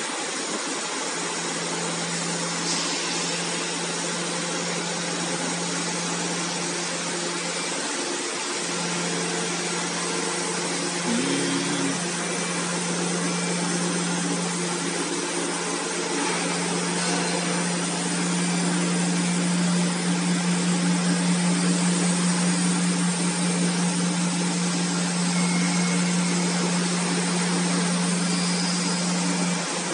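The oscillating knife of a MISSILECNC M5S CNC cutter running as it cuts shapes out of a printed sheet. It makes a steady hum over constant machine noise, and the hum drops out briefly about eight seconds in and again around twelve seconds.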